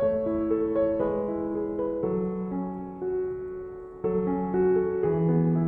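Gentle solo piano background music, starting at once with a chord, and new notes and chords entering about once a second.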